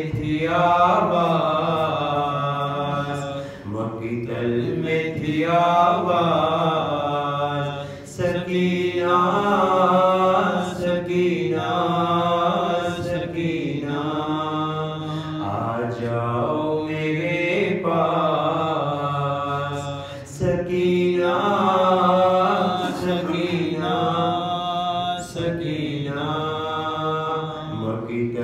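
A man chanting a marsiya, a mourning elegy, solo in long held melodic phrases with brief breaks for breath between them.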